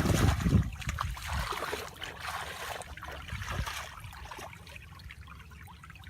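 Water trickling and dripping with small splashes, after a louder low rumble in the first second.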